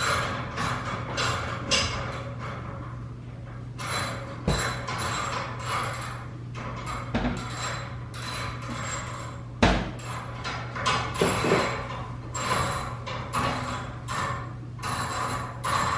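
Irregular knocks, taps and clatters, like hammering or handling tools and metal parts, with one sharper knock a little under ten seconds in. A steady low hum runs beneath them.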